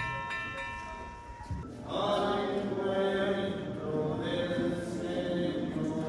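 Congregation singing a slow hymn together in church, led in by a short run of repeated ringing notes that fades out in the first second and a half before the singing starts.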